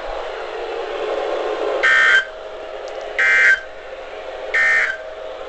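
Emergency Alert System end-of-message data bursts on NOAA Weather Radio: three short, identical bursts of two-tone digital code, each under half a second and about 1.3 s apart, marking the end of the civil emergency message. Faint radio hiss fills the gaps between them.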